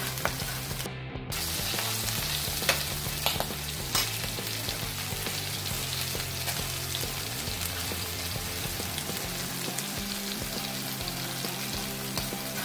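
Cornflour-coated sweet corn kernels deep-frying in hot oil on a low flame: a steady sizzle with a few sharp pops of spattering oil.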